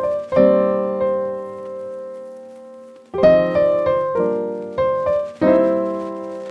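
Background music: piano chords struck and left to ring, one chord fading for nearly three seconds, then a new chord roughly every second.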